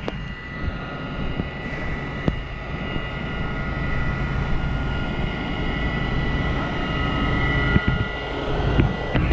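Fire engine's diesel engine running at raised revs to drive its water pump, a steady drone with a high steady whine on top, while the pump supplies water to the hose lines at low pressure.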